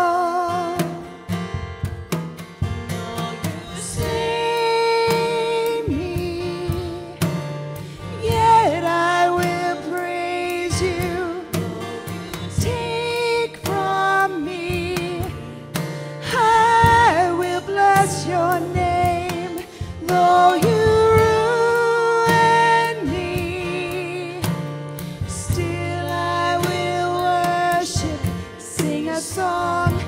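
Worship band playing a slow song live: women singing the melody together, with acoustic guitar accompaniment.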